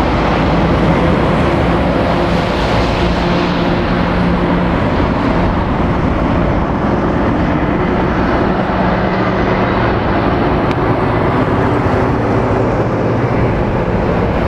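Articulated lorries driving round a roundabout: steady diesel engine and tyre noise as a DAF tractor unit with a curtainsider trailer passes and a bulk tanker lorry follows.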